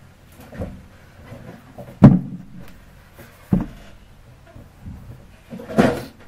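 Knocks and thumps of someone handling things and settling in at a desk: a sharp knock about two seconds in, the loudest, another about a second and a half later, then a longer rustling thump near the end.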